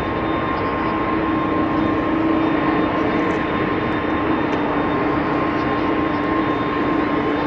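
Jet engines of a Japan Airlines Boeing 767-300 (General Electric CF6) running during the landing rollout: a steady rushing drone with a low hum and a higher whine, the hum dipping slightly in pitch near the end.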